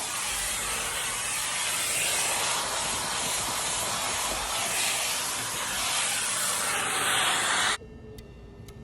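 Hart 3-in-1 wet/dry vacuum and extractor running, a steady rushing hiss of motor and suction airflow that cuts off suddenly near the end.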